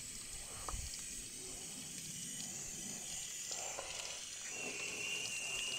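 Garden hose spray nozzle hissing as a jet of water rinses a car door panel, the runoff splashing onto the pavement. A steady high tone comes in about four and a half seconds in.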